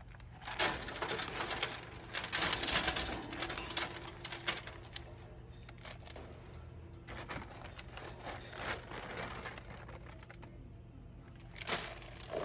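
Crackly rustling and scratching of bird-cage bedding being spread and smoothed out by hand, in irregular bursts, busiest in the first few seconds.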